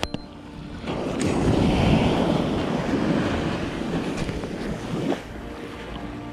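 Surf washing up a sandy beach: a wave swells in about a second in and drains away, with wind buffeting the microphone. A sharp click at the start and another about five seconds in.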